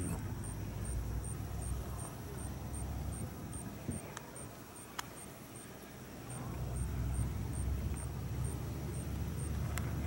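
Wind buffeting the microphone as a low, uneven rumble that eases off about halfway through and then picks up again. A faint high tick repeats about twice a second underneath, with a couple of small clicks near the middle.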